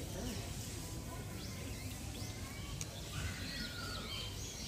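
Small birds chirping several times, with a quick run of chirps in the second half, over a steady low rumble of outdoor background noise.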